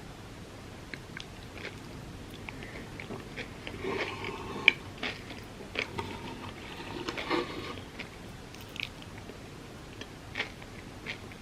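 Close-up mouth sounds of eating a Dubai chocolate crepe: bites and chewing with wet clicks and crunches. They are busiest about four and seven seconds in, with one sharp click just before five seconds.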